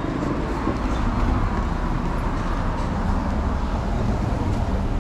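Steady rumble of city street traffic.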